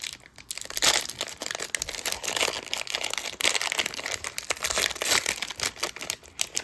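Trading-card pack wrapper being torn open and handled, a dense run of crinkling and crackling plastic.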